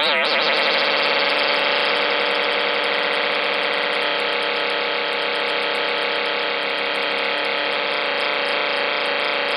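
Dense, steady electronic noise drone, many tones stacked together with a fast fluttering texture. It begins right where a wavering, siren-like synth sweep breaks off.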